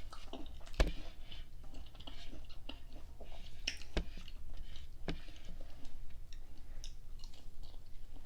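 Close-miked chewing of fried food: wet mouth sounds with scattered sharp clicks and crunches, the strongest about a second, four and five seconds in.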